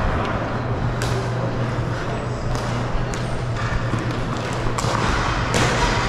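Floor hockey play: a handful of sharp clacks of sticks and puck or ball, over a steady low hum and the general noise of the game.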